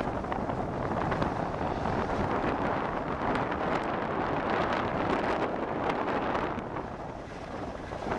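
Wind rushing over a camera microphone carried downhill on a snow slope, mixed with the steady hiss and scrape of edges sliding over packed, groomed snow; it eases slightly near the end.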